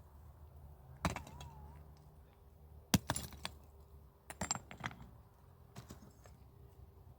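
A few sharp clicks and knocks of small hard objects being handled, the loudest about three seconds in, with a short run of rattling clicks a little later.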